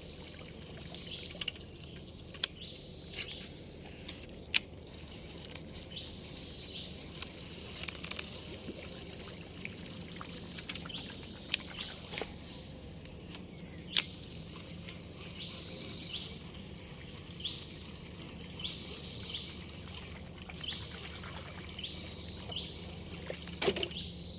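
A bird calling the same short high note over and over, roughly once every second or so, over steady outdoor background noise, with scattered sharp clicks.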